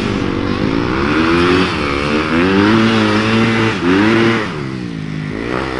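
Dirt bike engine revving, its pitch surging up and falling back several times as the bike pulls through deep mud.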